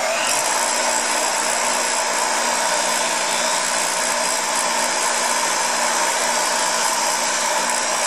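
Bench grinder running steadily with a brass wire wheel, polishing an aluminium motorcycle foot peg held against the wheel: an even whir with a constant low motor hum.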